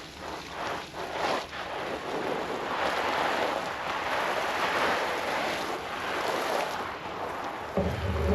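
Water spraying from a garden hose onto potted mums, a steady hiss. A bleat comes in near the end.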